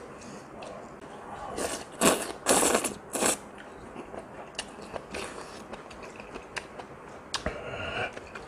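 A person slurping ramen noodles with chopsticks: several loud slurps about two to three seconds in, then chewing with small wet clicks.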